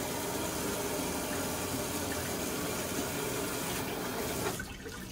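Hot water running steadily from a tap fed by a gas instantaneous water heater; the rush of water drops away sharply about four and a half seconds in.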